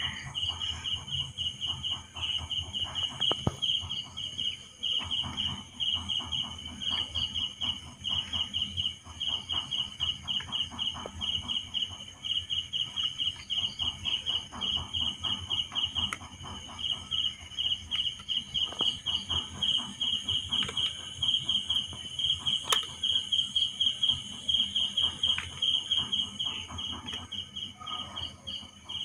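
Cricket chirping steadily, a high pulsing note repeating several times a second.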